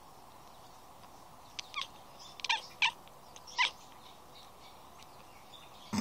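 Domestic cat chattering at birds: a handful of short, clipped chirps between about one and a half and four seconds in, the excited hunting chatter a cat makes at prey it can see but cannot reach.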